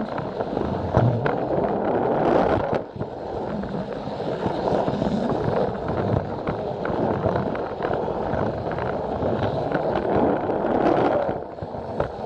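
Plarail toy train running on plastic track, its wheels rattling steadily with many quick clicks over the rail joints.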